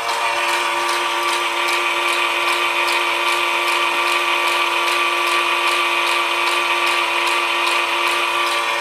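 Converted Super 8 projector running slowed to about three frames a second: a steady motor whine with an even clicking from the film-advance mechanism, about three clicks a second.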